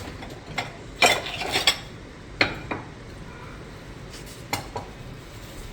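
Plate and cutlery clinking and knocking against each other: a few sharp clinks, the loudest cluster about a second in, two more a second later, and two fainter ones near the end.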